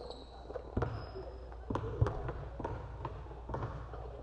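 Basketballs bouncing on a hardwood gym floor in scattered, irregular thuds over a steady low hum.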